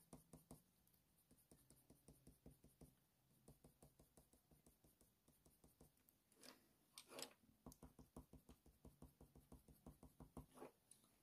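Near silence with faint, quick ticks of a Faber-Castell Polychromos colour pencil flicking short strokes across watercolour paper, about two or three a second, pausing briefly midway, as fur is blended outward.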